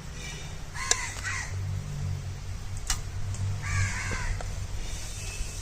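A crow cawing twice, about three seconds apart, over a low steady hum, with a couple of sharp clicks.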